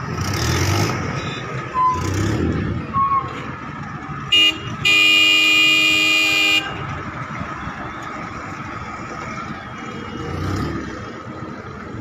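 Car horn: a short tap, then a steady blast of almost two seconds, over street traffic and engine noise.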